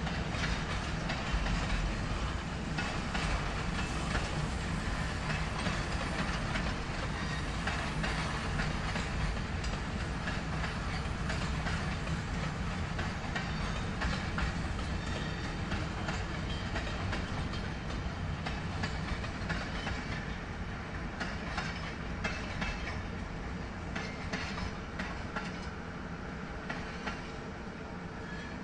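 Empty covered freight wagons rolling past on the rails, their wheels clacking over the rail joints over a steady rumble. The sound fades gently near the end as the tail of the train passes.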